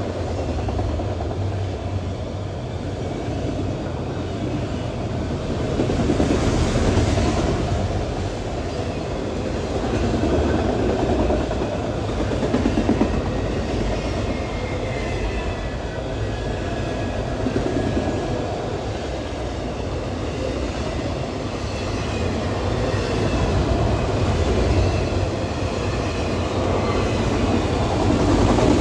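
Loaded freight train rolling past at track speed: a steady rumble and clatter of steel wheels over the rail joints, swelling and easing as the cars go by, with faint high squeals now and then from the wheels and bearings.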